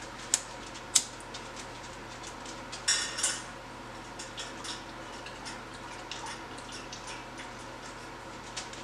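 A lighter struck twice with sharp clicks, then a short hiss about three seconds in as a glass hand pipe of cannabis is lit and drawn on, followed by faint scattered ticks and crackles.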